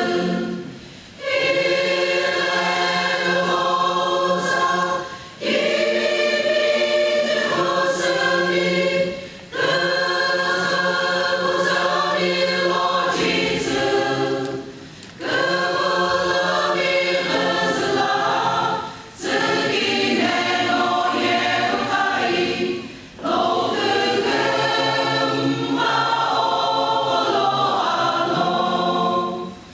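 Large church choir singing a gospel song in long phrases, with a short break between phrases every three to four seconds.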